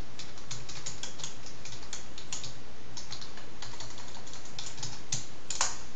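Typing on a computer keyboard: a run of irregular keystrokes, with one louder click near the end.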